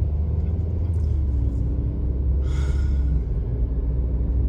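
Steady low road and engine rumble of a car, heard from inside the cabin while driving, with a faint steady hum above it and a brief hiss about two and a half seconds in.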